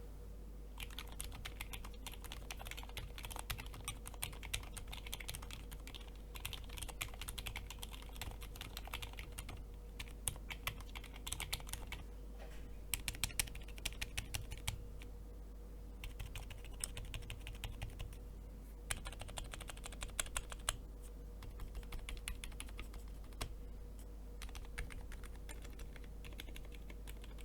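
Typing on a modded Redragon K552 mechanical keyboard fitted with lubed Gateron Silent Red linear switches: quiet, muted keystrokes in runs with short pauses, over a faint steady hum.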